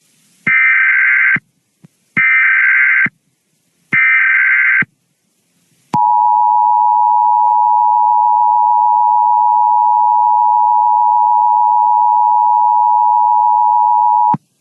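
Emergency Alert System signal: three short buzzing data bursts of the header code, then the long steady two-tone attention signal that introduces an emergency broadcast. The attention tone starts about six seconds in and cuts off shortly before the end.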